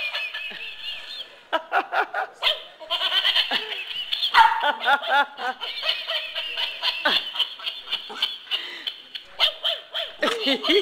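Battery-operated plush toy giving out a high-pitched electronic giggling, with many short clicks throughout. A puppy starts yapping near the end.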